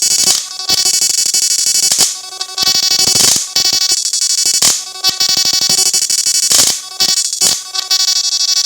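Electric fish-shocking inverter under load in salt water: a loud, steady electrical buzz with many overtones, broken about once a second by loud irregular crackling bursts.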